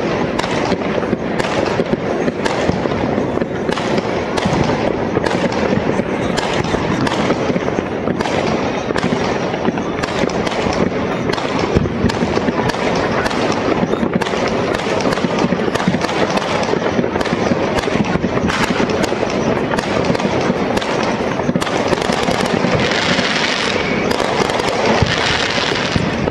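Dense barrage of fireworks and firecrackers going off at once, a continuous crackle of many overlapping pops and bangs. A brighter, hissier crackle comes in near the end.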